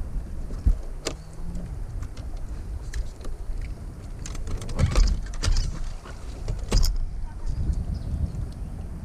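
A vehicle running with a steady low rumble and faint hum, with several sharp knocks and rattles.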